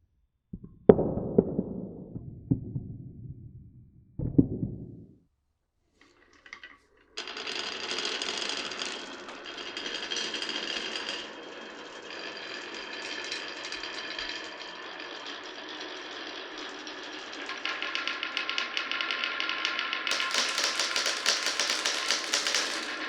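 Glass marbles dropping onto a wooden marble run with a few sharp clacks, then from about seven seconds a continuous rapid clatter of marbles rattling down the wooden track, growing louder near the end.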